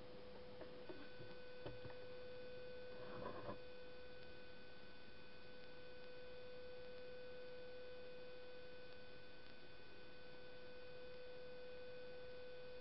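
A faint steady hum at one pitch, with fainter higher overtones. A few soft clicks and a brief rustle sound in the first few seconds.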